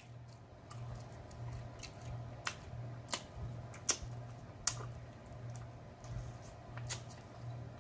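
Close-miked eating sounds: a crispy baked chicken wing pulled apart by hand and chewed, with a few sharp crackles and clicks. A low hum pulses underneath about one and a half times a second.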